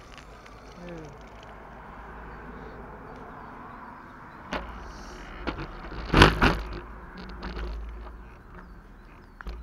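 Water splashing and running in a concrete trough, followed by a few sharp knocks and bumps, the loudest about six seconds in.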